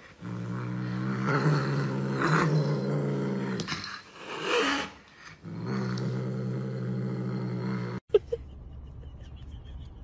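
Domestic cat growling low and continuously while guarding a stick in its mouth. The growl breaks off about four seconds in for a short higher wail, then resumes until about eight seconds in.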